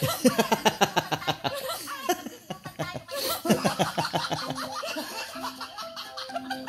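Hearty laughter in quick repeated bursts falling in pitch, with a second bout about three seconds in.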